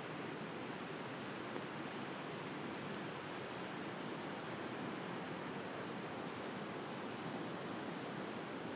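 Steady wash of sea surf, with a few faint pops and crackles from a wood fire scattered through it.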